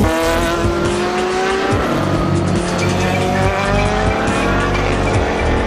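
Race car engines accelerating out of a corner: the engine note climbs in two long rising sweeps as cars pass one after another, with electronic dance music underneath.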